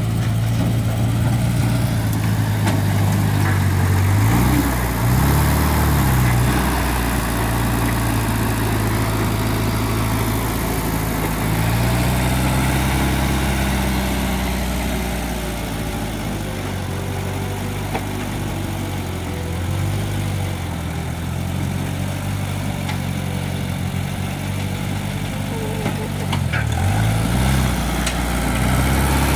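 The automobile engine of a homemade mini loader, running on LPG, under load as the machine drives and works its bucket. It runs steadily, with the revs rising and falling a few times: briefly about four seconds in, for a few seconds around twelve seconds in, and again near the end.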